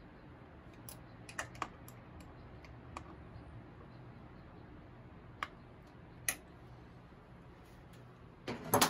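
Scattered light metallic clicks and taps as a chrome S&S Super air cleaner cover is handled and seated over the carburettor, with a quick cluster of louder clicks near the end.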